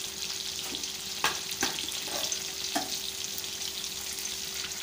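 Hot cooking oil sizzling steadily, with a few sharp pops about a second, a second and a half and nearly three seconds in. A faint steady hum runs underneath.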